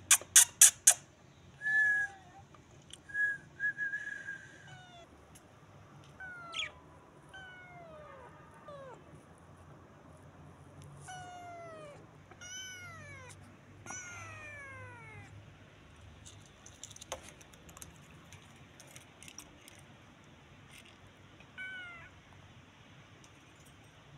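A kitten meowing again and again, short high cries that each fall in pitch. At the very start there is a quick burst of loud sharp clicks, followed by a few short whistle-like tones.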